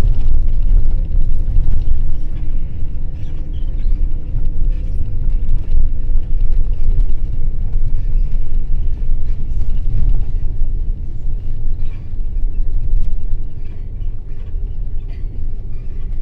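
Steady low rumble of engine and road noise inside a moving vehicle's cabin, easing slightly near the end.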